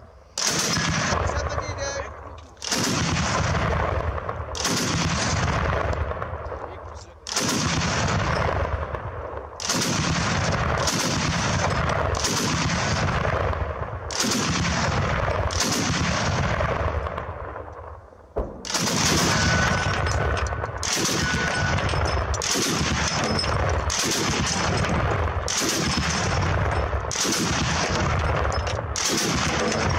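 Truck-mounted heavy machine gun firing, short bursts or shots about a second apart. Each carries a long echo, so the firing sounds almost continuous, with a few brief pauses.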